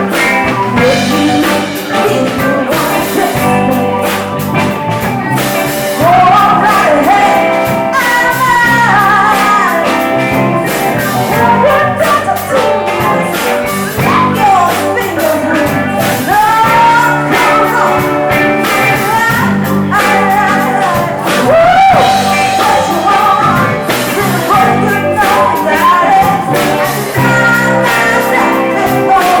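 Live band playing a soul song, with drum kit, guitar and a bending lead melody over it.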